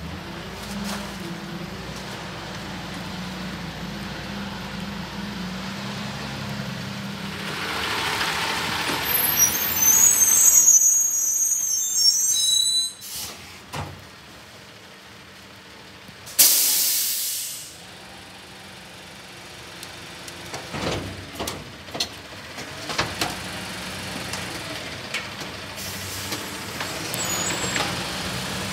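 Heil rear-loader garbage truck at work. The diesel engine runs steadily, then rises with high squeals as the hydraulic packer cycles. Later there is one loud air-brake hiss that fades over about a second, followed by scattered knocks and thumps from bags and bins.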